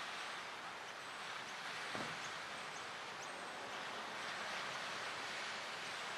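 Steady outdoor ambient hiss, a mix of light wind, water and distant traffic, with a few faint short high chirps and a soft knock about two seconds in.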